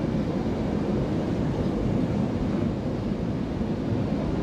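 Steady low roar of an airliner cabin at cruise: engine and airflow noise heard from inside the passenger cabin.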